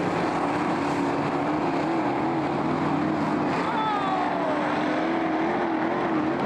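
Brisca F1 stock car engines running on the oval in a steady din, with a wavering engine note underneath; one car falls in pitch as it passes about four seconds in.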